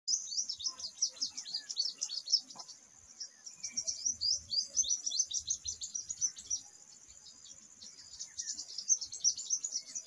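Sunbird singing: rapid, high-pitched twittering chips in three long bursts, each separated by a brief quieter pause.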